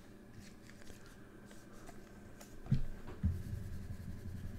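Trading cards handled on a tabletop: faint rustles and light clicks, then two dull thumps half a second apart a little past the middle as cards are set down, followed by low handling rumble.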